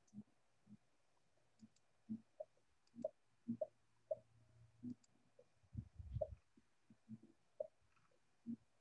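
Very faint, irregularly spaced soft clicks and knocks over low room tone, with a slightly longer low thump about six seconds in.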